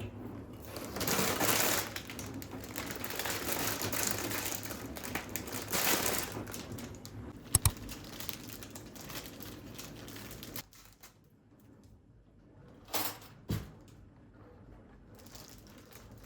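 Packaging rustling as items are handled for about ten seconds, with a sharp double click about halfway. It then goes quieter, with two short knocks about half a second apart a little later.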